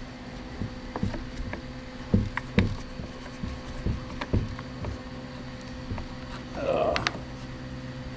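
Scattered light clicks and knocks of parts and tools being handled while an old chainsaw is reassembled, over a steady low hum.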